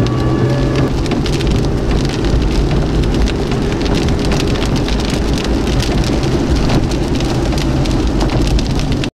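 Heavy rain pelting the windshield and roof of a moving car, a dense patter of drops over the steady low rumble of the vehicle. A faint steady tone fades out about a second in, and the sound cuts off abruptly near the end.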